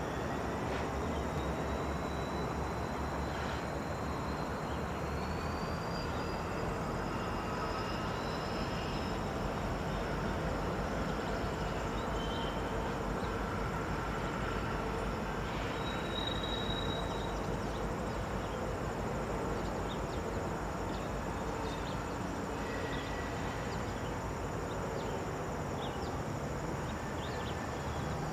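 Diesel freight locomotives running steadily at low speed, a constant low rumble, with insects chirring faintly and high in the background.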